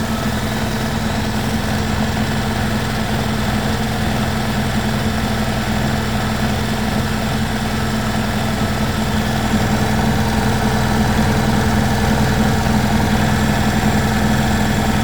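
Beko WMY81283LMB2 front-loading washing machine's drum spinning with an unbalanced load: a steady motor hum with vibration, gradually getting a little louder.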